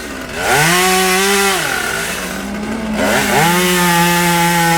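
A tree climber's small chainsaw revving up to cutting speed twice, holding for a second or two each time and dropping back between, as it cuts into a limb.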